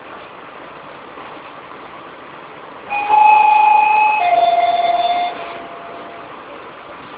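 Two-note falling chime inside an NJ Transit train car: a higher tone held for about a second, then a lower one that fades out, over the steady noise of the train.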